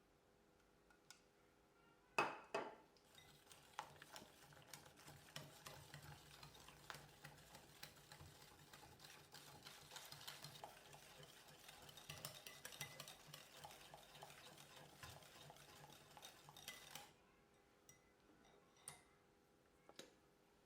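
Cake mixture being stirred in a mixing bowl: a utensil scrapes and taps against the bowl continuously, starting with a sharp clink about two seconds in. The stirring stops suddenly a few seconds before the end, leaving a few small clicks.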